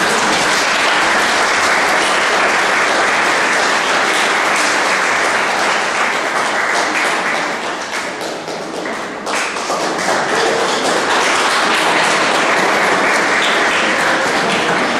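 Audience applauding: dense, steady clapping that eases briefly about eight to nine seconds in, then picks up again.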